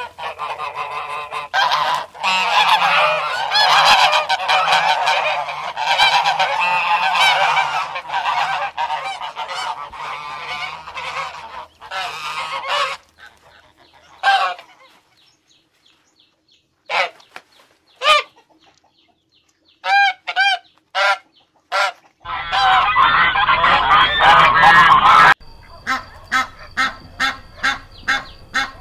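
A flock of domestic ducks and ducklings calling over one another in a dense, loud chorus. About halfway through it thins to a few single calls, then swells again and ends with calls coming about twice a second.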